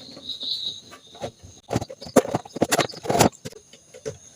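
Irregular clicks and light knocks of small parts being handled in an opened blender base as its overload switch is worked loose, with several sharper clicks in the second half.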